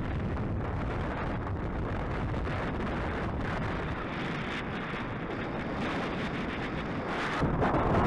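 Wind buffeting the microphone while riding a bicycle: a steady low noise that gets louder and fuller about seven seconds in.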